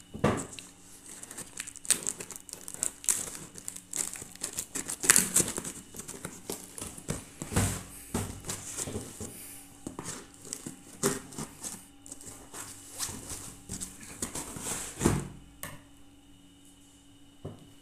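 A cardboard parcel being cut open with scissors and its flaps pulled back: irregular crackling, crinkling and tearing of tape and cardboard, with sharper snips and rips, dying down about three-quarters of the way through.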